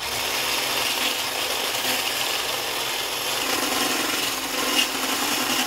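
Electric whisk running at speed, beating eggs and sugar in a bowl: a steady motor whine with the rattle of the whisk. It switches on abruptly.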